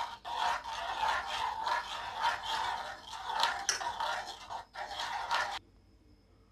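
Metal spoon stirring spiced water in a metal pot, scraping and rubbing against the pot in quick, uneven strokes; it stops abruptly about five and a half seconds in.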